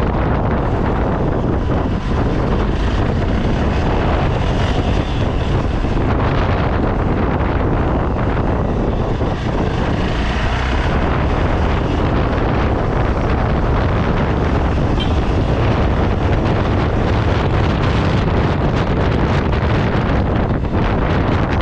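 Steady, loud wind noise buffeting the microphone.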